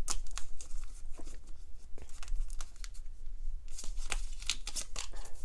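A deck of tarot cards being shuffled by hand, the cards slapping and rustling against each other in quick, irregular clicks.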